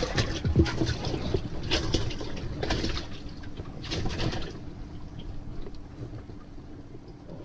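Water splashing and sloshing in a bass boat's livewell as fish are grabbed out by hand: several short splashy bursts over the first four and a half seconds, then quieter.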